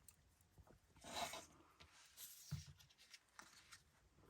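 Faint handling sounds of paper crafting: a brief scratchy rustle about a second in, a soft thump a little after two seconds, and a few small ticks.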